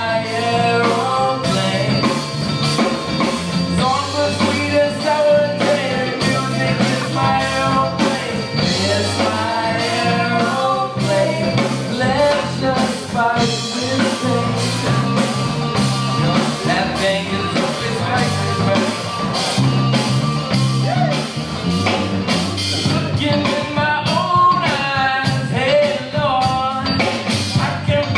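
Live rock band playing: sung vocals over electric guitar, drum kit and a prominent bass guitar line.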